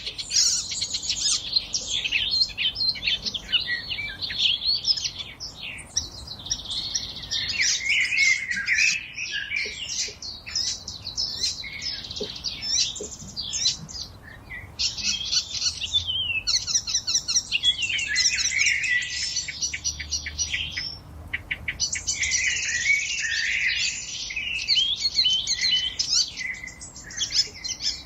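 Forest songbirds singing together, a dense overlapping chorus of quick chirps, whistled notes and rapid trills.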